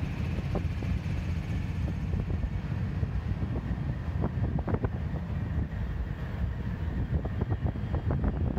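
Union Pacific diesel freight locomotives passing, a steady low rumble with scattered clicks and knocks, heavily buffeted by wind on the microphone.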